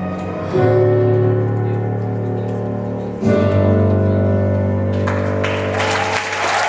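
Recorded show music ending on long held chords, the chord changing twice. Audience applause breaks in about five seconds in and builds over the last chord.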